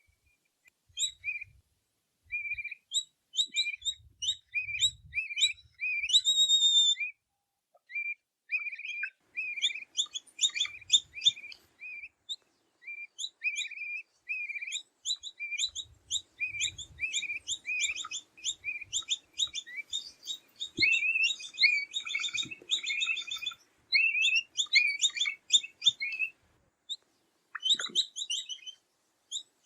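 Capybara chirping: rapid, high, short squeaky chirps, several a second, in runs with brief pauses.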